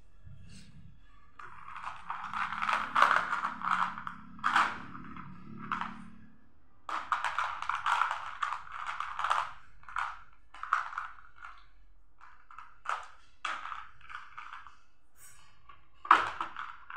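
Small plastic beads rattling and clattering in a clear plastic tub as a hand rummages through them and picks some out. The clatter is dense for most of the stretch, then thins to scattered clicks, with one sharp louder clack near the end.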